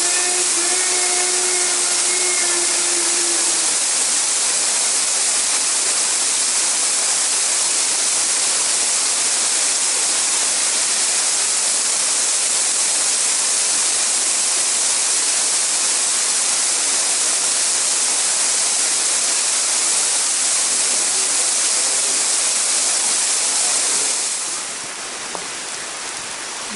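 Waterfall rushing steadily, a loud even hiss that eases off slightly about 24 seconds in.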